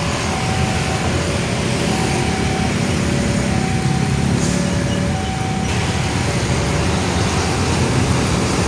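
KAI CC203 diesel-electric locomotive rumbling slowly past with a train of tank wagons. Over it, a two-tone signal goes high-low, high-low, each tone lasting under a second, and fades near the end.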